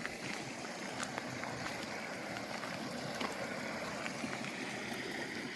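Steady rain and running water: a soft, even rush with a few faint scattered ticks.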